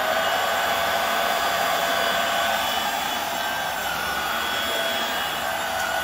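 Hoover WindTunnel Air Steerable (UH72400) bagless upright vacuum running with its brush roll on, just switched on: a steady rush of air with a motor whine.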